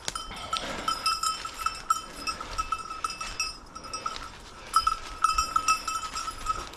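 A hunting dog's bell jangling with uneven, quick strikes as the dog moves through cover. It goes quiet for about a second midway, then rings again.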